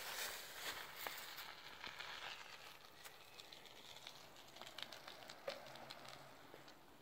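Faint rustling and crackling of dry fallen leaves with scattered small clicks, fading in the second half.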